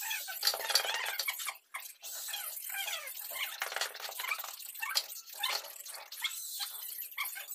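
A straightedge being drawn through a wet sand-cement floor screed: irregular gritty scraping and wet scrapes. High, wavering calls come and go over it.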